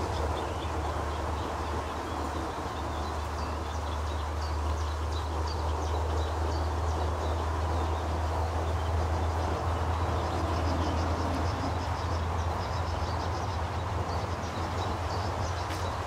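Steady low rumble throughout, with many short, high bird chirps repeating over it.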